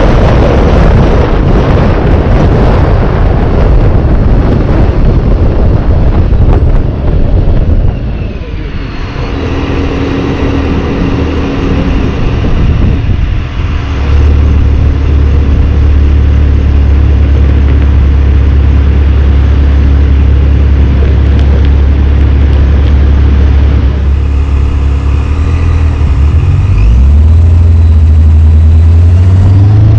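Supercharged 2017 Dodge Charger V6 on a test drive. For the first eight seconds there is heavy wind and road rush, then the engine runs at a steady low hum, and it accelerates with rising pitch near the end.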